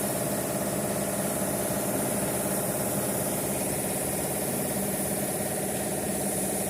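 Engine idling steadily: a constant hum with a high hiss above it.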